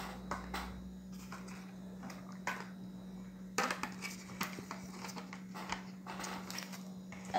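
Small clicks and scratches of little plastic toy pieces being fitted together and handled on a table, over a steady low hum.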